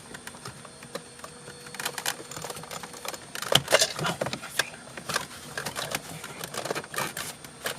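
Irregular clicks and clinks of hand tools and metal parts being worked on the shifter mechanism of a BMW 328is, with a few sharper knocks about halfway through.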